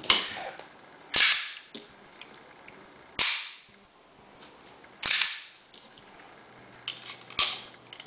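Rock Island Armory 1911 pistol's action being worked by hand: about six sharp metallic clacks, a second or two apart, each with a short ringing tail.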